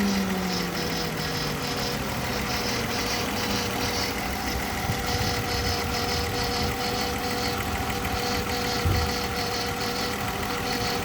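BMW E39 520i's inline-six engine settling back to idle as its revs drop in the first couple of seconds, then idling steadily. A regular high-pitched ticking of about three a second runs over the idle; this is the strange noise being shown.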